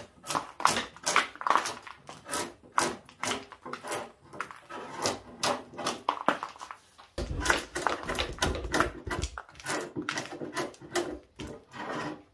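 A drawknife scraping bark off the live edge of an ash slab in quick repeated strokes, about two or three a second. A dull rumble joins for a couple of seconds in the middle.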